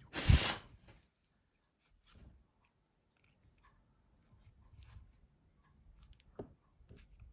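Small phone parts being handled on a work surface: a brief loud rush of noise with a low thump just after the start, then faint scattered clicks and rustles.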